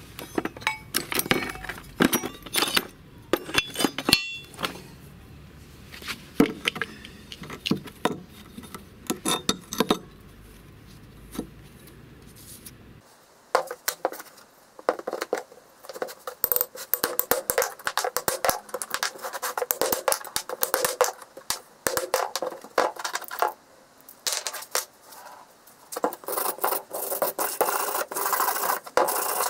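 Rusty scrap-metal parts clinking and knocking as they are handled in a plastic tub, then, from about halfway through, a hand wire brush scrubbing rust off a car wheel hub bearing with quick scratchy strokes that grow louder near the end.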